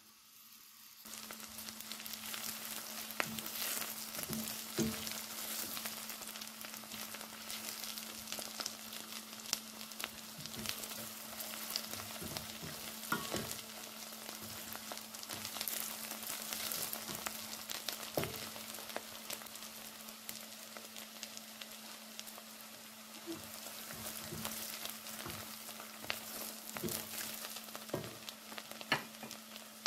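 Chopped onions sizzling as they fry in hot olive oil in a pan, with the spoon clicking and scraping against the pan as they are stirred. The sizzle starts about a second in.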